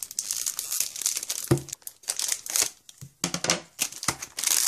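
Plastic packaging crinkling and rustling as a new Moyu Skewb puzzle cube is unwrapped by hand, in irregular crackly handfuls with a little tearing.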